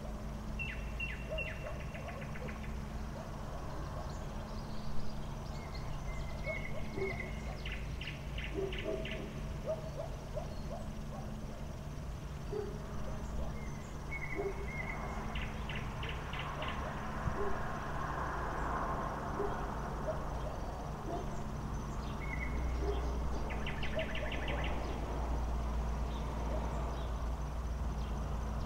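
Night-time outdoor ambience under a steady low hum. An animal call repeats about four times, roughly every seven or eight seconds: a brief held note followed by a rapid clicking trill of eight to ten pulses. A broad swell of noise rises and fades in the middle.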